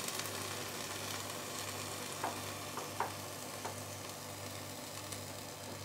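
Freshly baked curd casserole in the multicooker's hot bowl sizzling and crackling faintly as the lid is opened after the baking cycle, with a few light clicks in the middle.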